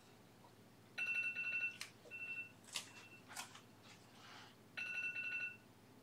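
An electronic ringer trilling in short bursts of a steady high tone, the longest about a second in and again near the end, with a few sharp clicks and a brief rustle between them.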